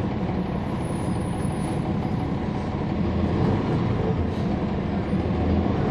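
Cummins ISL9 inline-six diesel of a 2011 NABI 40-SFW transit bus, heard from inside the cabin while the bus is under way: a steady engine drone mixed with road rumble, swelling slightly about halfway through.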